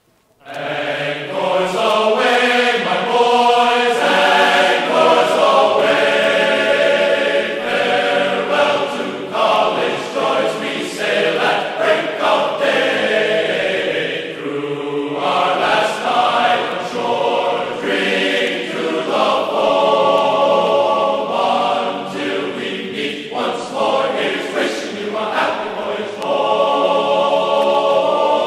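Background music with a choir singing sustained notes, starting suddenly just after the start.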